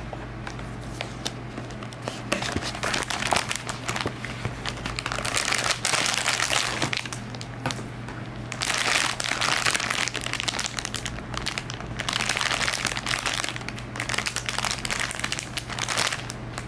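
Crinkling and crackling of something being handled, in three long bursts with scattered sharp clicks between.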